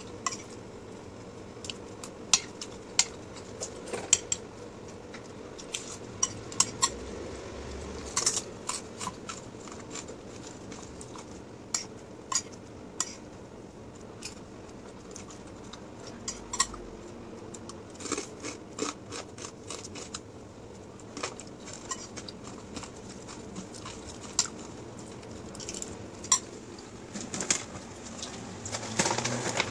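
Metal spoon clinking and scraping against a plate while eating, in irregular sharp clicks a second or two apart. Near the end, a plastic bag rustles.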